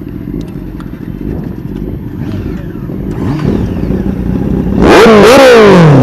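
Sport motorcycle engine being revved. The revs rise and fall once about three seconds in. Near the end comes a much louder burst of two or three quick throttle blips, after which the revs fall away.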